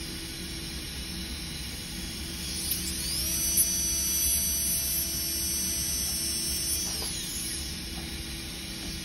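Dental handpiece with a fine diamond bur cutting a polycarbonate crown form. It spins up with a rising whine about two and a half seconds in, holds a steady high whine for about four seconds, then winds down with a falling whine.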